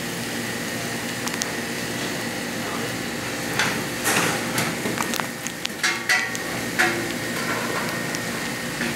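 Chicken and onions frying in a pan with a steady sizzle; in the middle a spatula knocks and scrapes against the pan several times.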